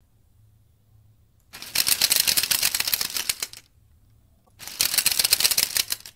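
A 3D-printed split-flap display's plastic flaps snapping over one after another in fast runs of clicks as its 28BYJ-48 stepper motors turn the flap drums. There are two runs, one of about two seconds starting a second and a half in, and one of about a second and a half near the end.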